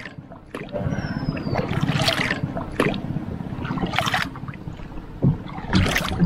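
Wooden paddle stroking through canal water beside a wooden canoe, splashing about every two seconds, with water dripping off the blade between strokes over a steady wash of water along the hull.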